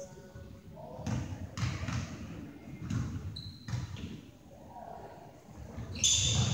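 Basketball bouncing on a hardwood gym floor, a few separate thumps echoing in the large gym, with voices growing louder near the end.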